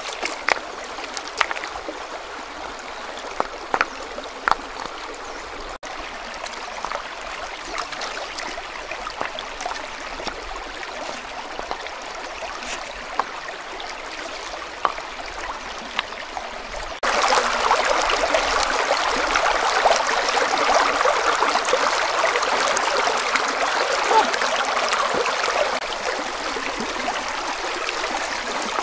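Shallow river running over rocks, with occasional sharp knocks and splashes as stones are set in the water by hand. A little past halfway the rush of water suddenly gets louder and fuller.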